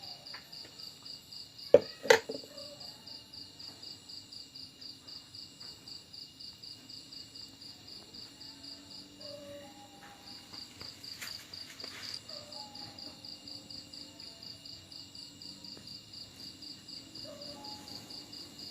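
A steady, rapidly pulsing insect chirp throughout. About two seconds in come two loud, sharp splashes from the catfish pond as the shrimp go in and the dumbo catfish feed.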